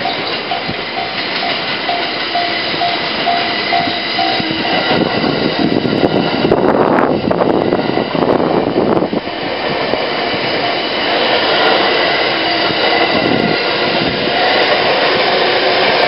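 Level-crossing warning bell dinging about twice a second, stopping about four and a half seconds in, as an E231 series electric commuter train runs over the crossing. The train's wheels and running gear are loudest a few seconds later and keep going as the train picks up speed from a slow start.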